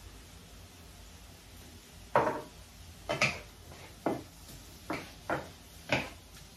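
Wooden spatula knocking against a frying pan while stirring sautéed tomatoes, onion and garlic: about six sharp knocks, starting about two seconds in.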